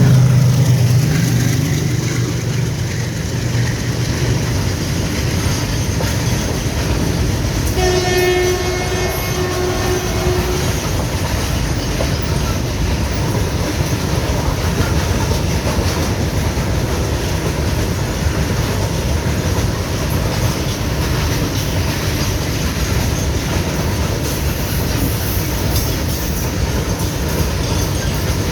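Goods train passing on the rails: a loud low rumble at first that eases after a couple of seconds, a locomotive horn blast lasting about two and a half seconds about eight seconds in, then the steady rolling noise of freight wagons going by.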